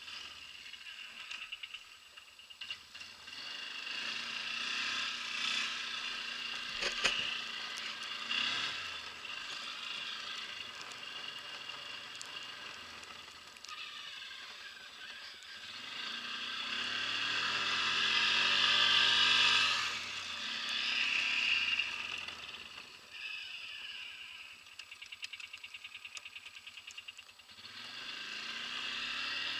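ATV engine running over snow, ticking over at low speed, then revving with pitch climbing and falling about halfway through, dropping back to idle, and climbing again near the end.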